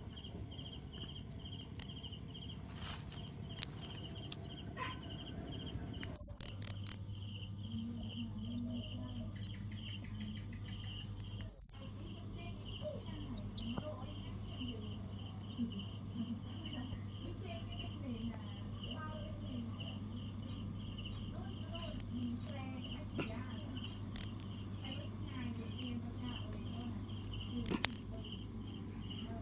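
Cricket chirping steadily, a high-pitched chirp repeating about four times a second, with a brief break about eight seconds in.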